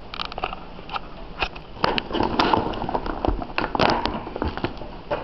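Action-figure box being torn open by hand: a run of irregular crackles, rips and taps, busiest in the middle.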